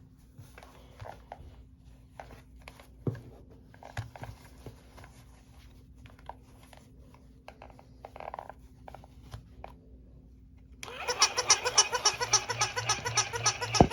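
Faint scattered clicks and light knocks over a low steady hum. About eleven seconds in, loud music with a fast, steady beat starts suddenly.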